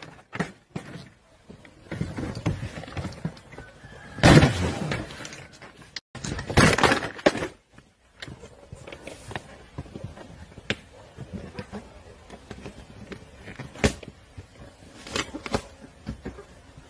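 A framed platinum record plaque being smashed against concrete. There are sharp cracks and clatters of the frame breaking, the loudest crashes about four and seven seconds in, followed by smaller knocks and rattles as the broken pieces are handled.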